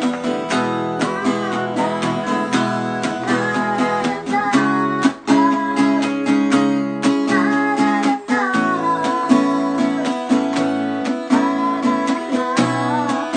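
A woman singing a song over a strummed acoustic guitar, the guitar keeping a steady rhythm under her wavering, gliding voice.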